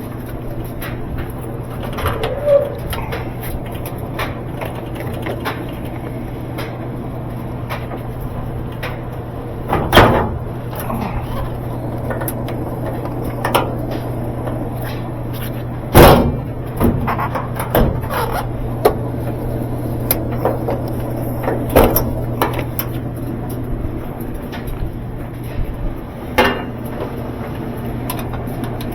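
A steady low hum with scattered knocks and clanks. The two loudest knocks come about ten and sixteen seconds in.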